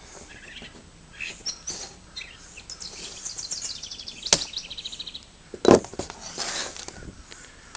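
Small birds chirping in the background. There is a single sharp click about four seconds in, as diagonal cutters snip through the rubber fuel line, and a duller knock a little over a second later.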